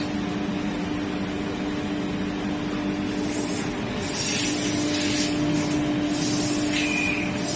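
CNC router machine running with a steady mechanical hum and a held low tone, joined partway through by bursts of high hiss and, near the end, a short high-pitched tone.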